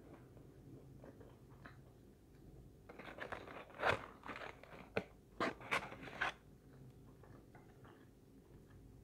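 Close-up chewing of fried fast food. From about three to six and a half seconds in there is a run of loud crinkling and crackling as a cardboard fries box is lifted and handled.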